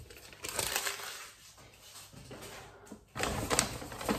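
Paper carrier bag rustling and crinkling as a hand rummages inside it, quieter in the middle, then louder rustling with a few light clicks from about three seconds in.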